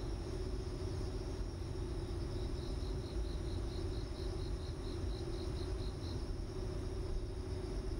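A cricket chirping: a high pulsed chirp, about five pulses a second, that starts a couple of seconds in and stops about six seconds in, over a steady low hum.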